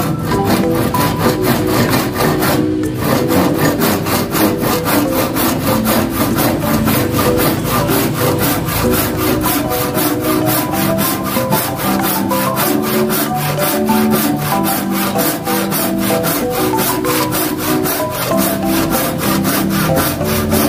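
Tjap Mata (Carl Schlieper) handsaw cutting through wood in steady, even back-and-forth strokes, with a brief pause about three seconds in. Background music plays underneath.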